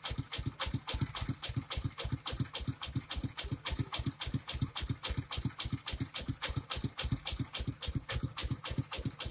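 Engine of a truck-mounted rice milling machine running the mill, with an even chugging beat of about five thuds a second.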